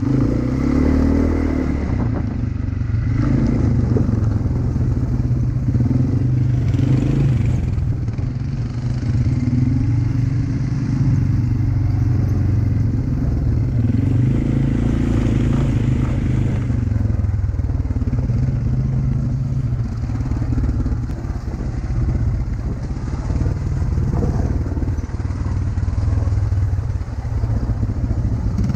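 Motorbike engine running steadily as it rides, its note rising and falling with the throttle.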